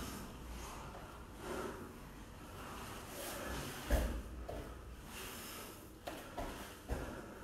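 Two grapplers rolling on foam mats: bodies scuffing and shifting on the mat with breaths, a thump about four seconds in and a few lighter knocks near the end.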